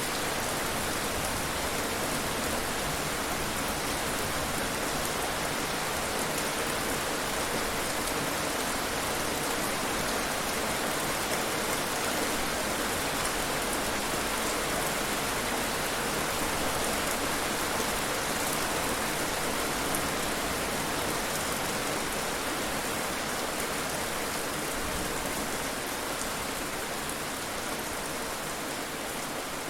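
Heavy rain falling steadily, a dense even hiss of drops hitting a surface, easing slightly in level near the end.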